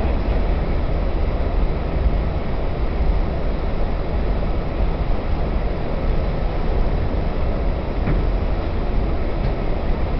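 R68 subway car running at speed through a tunnel, heard from inside the car: a steady, loud rumble of wheels on rails.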